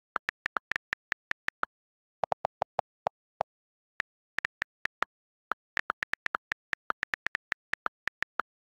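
iPad on-screen keyboard key clicks, captured straight from the device: quick, irregular taps several a second as letters are typed, with dead silence between them. A short run of lower-pitched clicks comes about two to three seconds in.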